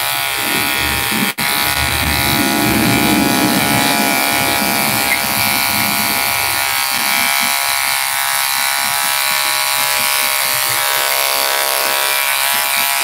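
Electric hair clipper buzzing steadily as it trims facial stubble and moustache, with a momentary dip about a second and a half in.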